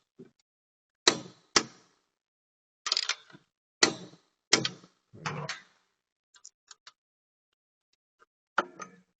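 A string of sharp knocks and clicks from hand tools working on the motorcycle's rear axle while it is being tightened. They are irregularly spaced: about eight loud ones in the first six seconds, then fainter ticks, and one more knock near the end.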